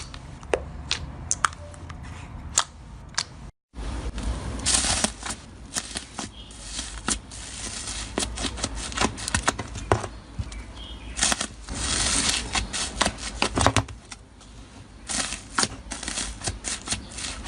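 Slime being squeezed and poked by hand, with many sticky clicks and pops and short crackling rushes.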